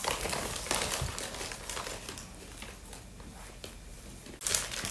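Plastic snack packets crinkling and rustling in hands, with many short sharp crackles in the first couple of seconds, quieter in the middle, and a louder rustle shortly before the end.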